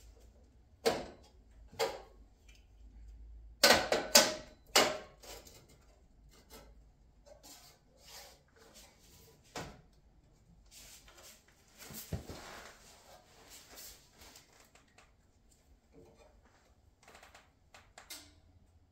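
A sheet-steel frame cap plate being fitted against a truck frame rail: scattered metallic knocks and clacks as the plate is handled and magnets are set on the steel, loudest in a quick cluster about four seconds in, with a stretch of scraping around twelve seconds in.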